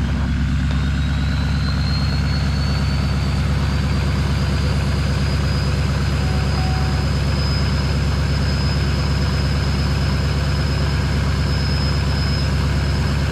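Truck engine running after a cold start, with a high whine that climbs over the first few seconds and then holds steady, the sound the owner calls "airplane mode".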